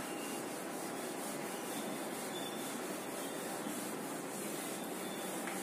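Whiteboard duster rubbing back and forth across a whiteboard, wiping off marker writing in steady, quickly repeated strokes.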